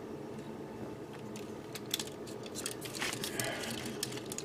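Light clicks and rattles of hard plastic model-kit parts being handled and pressed into place on a painted Zaku II model, the clicks coming more often in the second half.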